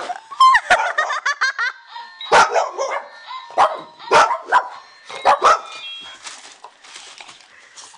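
An electronic talking toy ball chiming and calling out in a tinny synthetic voice ("Where are you?"), then a black Lab mix barking about six times in quick bursts.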